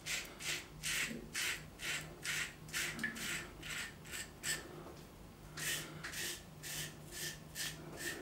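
Wilkinson Sword twist-to-open safety razor with a Dorco Titan double-edge blade scraping through lathered stubble on the cheek in short strokes, about two a second, with a pause of about a second midway.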